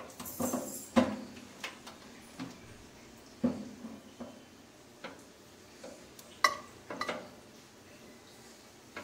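Wire rotisserie rack being fitted into a convection microwave oven: scattered light metal clinks and taps as it knocks against the oven's metal interior. One louder, briefly ringing clink comes about six and a half seconds in.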